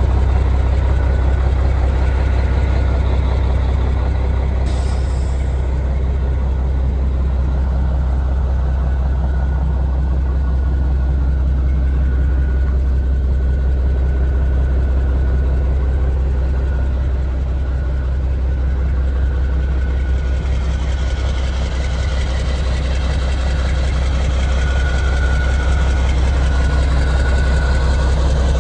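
Heavy diesel truck engine idling steadily, a constant low rumble, with a brief faint hiss about five seconds in.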